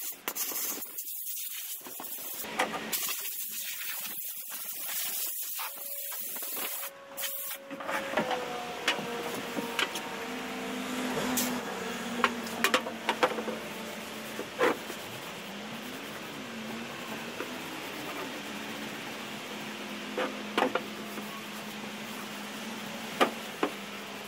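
Hiss in uneven bursts for the first eight seconds, then a steady low hum with scattered sharp clicks and taps as a metal solvent can and a rag are handled while the sanded plywood transom is wiped down.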